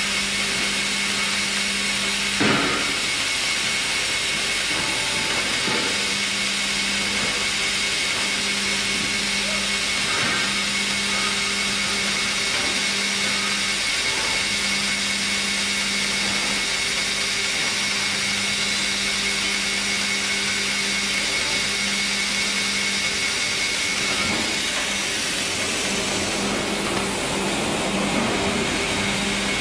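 Sawmill band-saw line and its log conveyors running: a constant machine hum with a high steady whine, and a single knock about two and a half seconds in.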